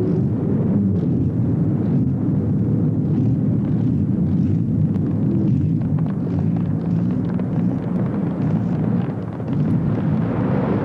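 Loud, steady low rumble of engine and wind noise, dipping briefly a little after nine seconds.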